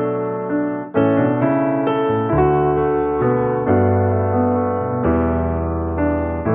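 Background music: piano chords played one after another, with notes held and a bass line entering about midway.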